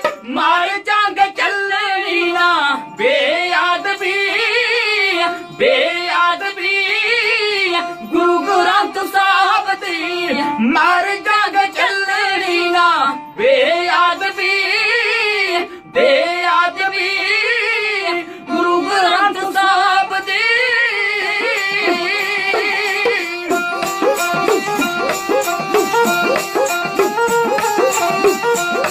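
Dhadi folk music: men singing with a wavering, ornamented voice over a bowed sarangi and two dhadd hourglass drums. About 23 seconds in the singing stops, and the sarangi plays on over a steady, even dhadd beat.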